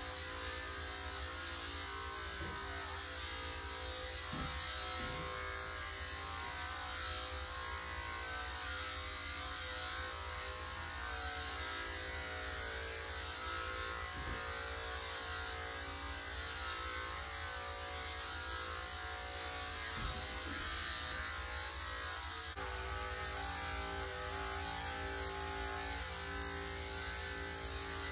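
Cordless dog grooming clippers running steadily as they trim a cockapoo's curly coat around the face and chest, with a constant electric buzz. The pitch of the hum shifts about 22 seconds in.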